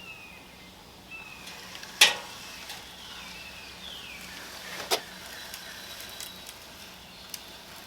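Quiet handling of a tape measure and pencil on a pine board while a cut line is marked: faint scraping and squeaks, with two sharp clicks about three seconds apart.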